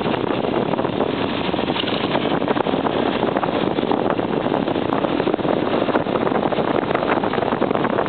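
Continuous rushing noise of a vehicle driving fast on an unpaved gravel forest road: wind on the microphone mixed with the rough crackle of tyres over the gravel, with no distinct engine note standing out.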